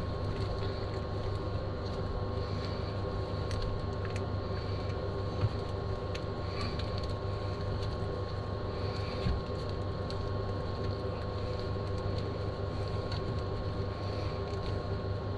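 A steady mechanical hum with several constant tones, with two brief light knocks, about a third of the way in and again past halfway.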